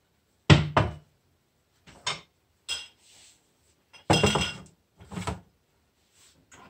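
Drinking glasses and a wooden serving tray being set down on a countertop: a series of knocks and clinks, the loudest a double knock about half a second in and a longer clatter with glass ringing about four seconds in.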